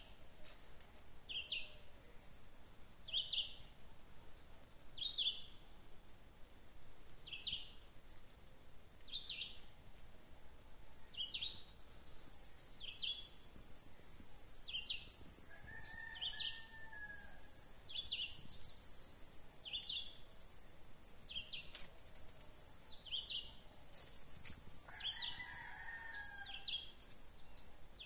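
Birds singing in a forest canopy: one bird repeats a short high call about once a second, and about twelve seconds in a steady, very high-pitched trilling joins it, with a few fainter lower calls.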